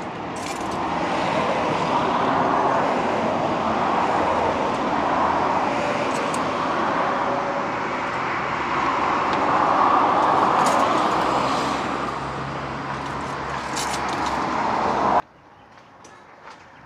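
Marinated octopus sizzling in a pan on the grill: a steady hiss that swells and eases, with a few crackles, cutting off suddenly near the end.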